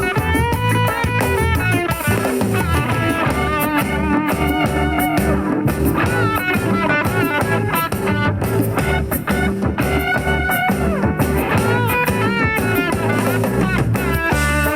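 Instrumental break of a song played through an Eggel Terra 3+ portable speaker: a melodic guitar line over a steady bass and drum kit, with no singing.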